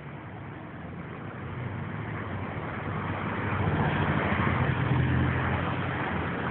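A motor vehicle passing close by on the street. The engine hum and tyre noise build over the first few seconds and are loudest about four to five seconds in, as it goes past.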